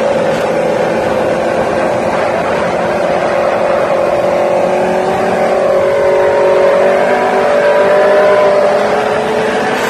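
Aprilia RSV4 sport bike's V4 engine running under way at steady speed. Its note rises slowly in pitch about halfway through, then eases a little near the end.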